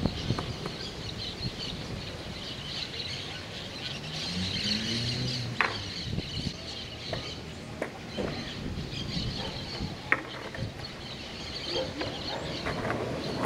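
Birds chirping steadily in the background, with a few sharp knocks of a skateboard being handled and set down, the clearest just before the middle and again past two-thirds.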